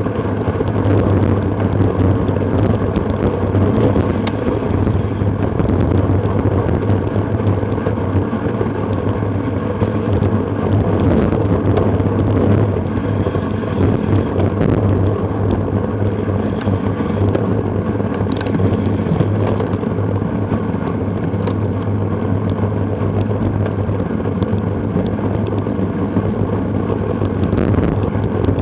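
Steady wind noise on a Garmin VIRB action camera's microphone while racing on a bicycle, with road noise underneath and no clear separate events.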